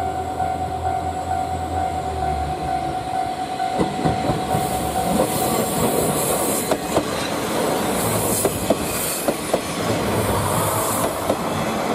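JR KiHa 40-series diesel railcar passing close by. A steady whine and low engine hum come first; from about four seconds in, the wheels click over rail joints with a hiss of wheel-on-rail noise as the cars go past.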